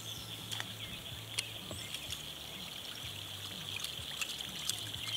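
Faint outdoor ambience by still water: a steady high-pitched buzz, a low hum and scattered small clicks.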